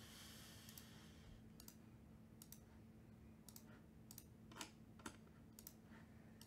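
Near silence with faint, irregular clicks of a computer mouse and keyboard, about one or two a second, over a faint steady hum.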